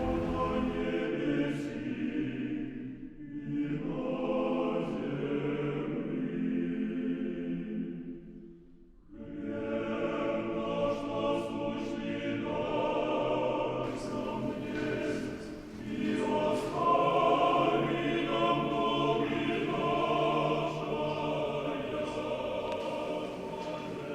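Choir singing in several voices, phrase by phrase, with a brief break about nine seconds in.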